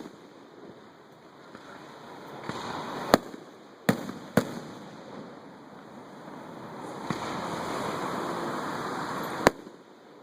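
Aerial display firework shells bursting: four sharp bangs, one about three seconds in, two close together about a second later, and one near the end, with a rushing hiss swelling between them.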